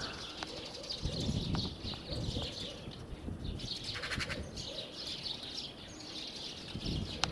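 Small birds chirping repeatedly over a low rumble of wind and handling noise.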